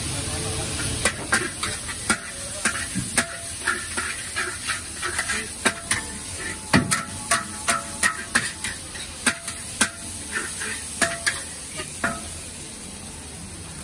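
Metal wok spatula clanking and scraping against a carbon-steel wok during stir-frying, irregular sharp clanks a few times a second, some with a brief metallic ring, over a steady hiss. The clanking stops about 12 seconds in.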